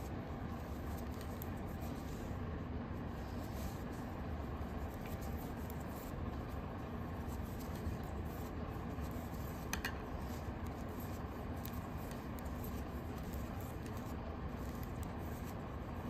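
Faint clicking and scratching of knitting needles working yarn over a steady low hum, with one sharper click about ten seconds in.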